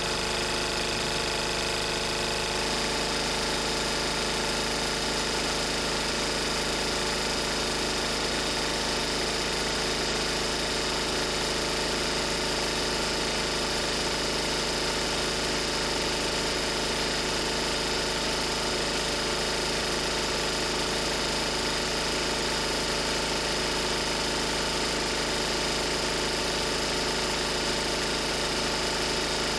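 A 1994 Lister Petter AD1 single-cylinder air-cooled diesel generator set running steadily at its governed 3000 rpm. Its tone shifts slightly about two and a half seconds in.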